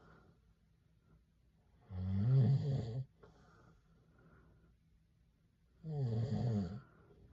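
A man snoring in his sleep: two loud, rasping snores about four seconds apart, each lasting about a second.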